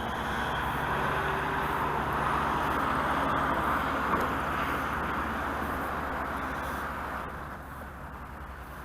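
Steady outdoor rush of background noise with a low, even hum underneath, swelling slightly and then fading about three-quarters of the way through.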